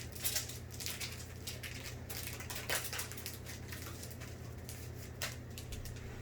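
Pokémon trading cards and foil booster-pack wrappers being handled: light, irregular rustling and clicking as cards are shuffled through and packs opened, over a low steady hum.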